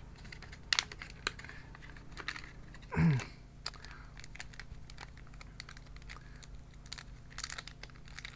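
Small plastic bags crinkling and rustling as they are handled and opened, with scattered light clicks and ticks. A brief murmur of voice about three seconds in.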